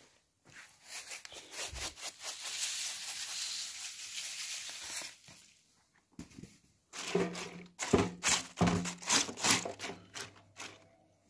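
Hands mixing and rubbing chopped cabbage and green onion in a stainless-steel tray, the vegetables being salted for pickling. A few seconds of continuous rustling, then after a short pause a run of separate, louder crunchy rustles.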